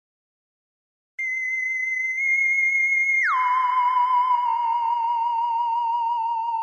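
A unicorn Animoji recording plays a high, wavering, whistle-like tone. It starts abruptly, holds, then drops sharply by about an octave and holds again with a quaver.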